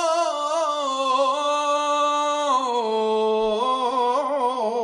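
A man chanting Torah cantillation in Hebrew, in the Jerusalem (Yerushalmi) custom, drawing one word out into a long melismatic phrase. The held notes step down in pitch about halfway through, with quick wavering turns near the end.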